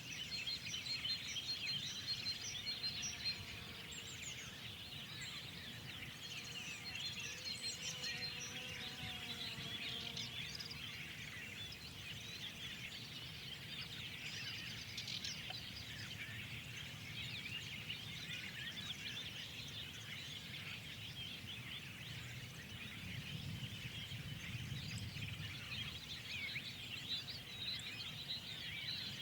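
A spring dawn-chorus style mix of many small songbirds chirping and twittering at once, dense and continuous, over a steady low background rumble.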